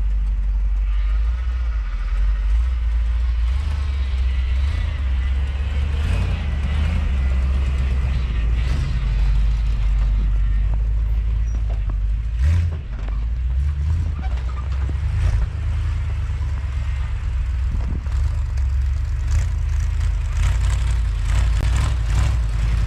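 1979 Ford F250 pickup's engine running with a deep, steady drone as the truck is driven through snow; the note drops briefly about halfway through.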